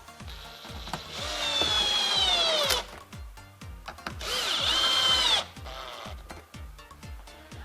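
Power drill run in two bursts of about two seconds each, its motor pitch sagging under load as it bores into wood. Background music with a steady beat runs underneath.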